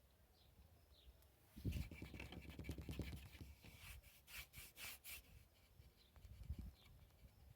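Quiet rubbing and rustling starts about a second and a half in, followed by a few short scratches. Faint bird chirps are heard in the background.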